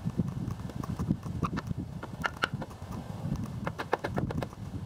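Irregular hollow knocks and scrapes of work on an old wood-sheathed, shingled garage roof, the sound of rotten shingles and sheeting being torn off.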